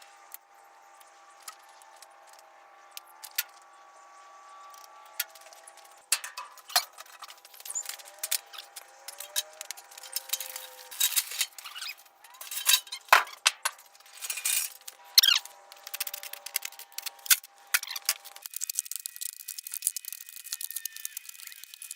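Scattered clinks, knocks and rattles of hard objects being handled and set down, with a faint steady tone underneath. The background changes abruptly near the end.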